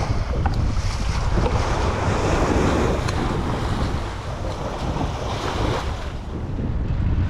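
Wind buffeting the microphone with a rough rumble, over the wash of sea waves.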